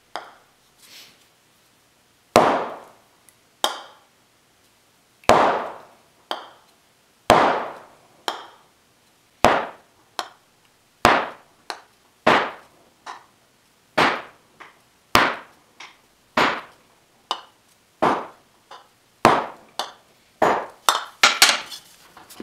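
Ball peen hammer striking a thin aluminum fender panel laid on a sandbag, setting a body line for a recessed bead. Single blows come about a second apart, each with a short ring, and crowd into a quick run near the end.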